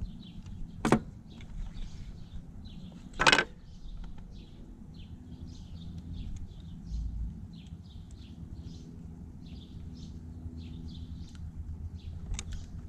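Two sharp clicks about two and a half seconds apart from hands and a screwdriver working on a Corvette fuse block's relay pin. Birds chirp steadily in the background.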